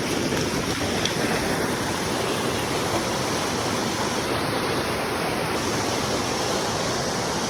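Mountain stream rushing steadily over rocks, a constant even water noise.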